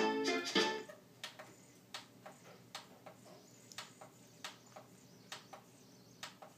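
A last toy-ukulele strum rings out in the first second, then come sharp plastic clicks of the buttons on a portable CD player boombox, pressed roughly once a second while skipping through the tracks.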